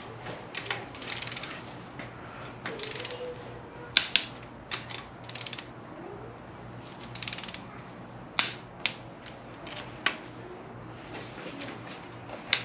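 Socket ratchet clicking in short bursts as bottom-end bolts of a 1JZ-GTE engine are turned through their torque angle, with several sharp single metallic clicks of hand tools in between.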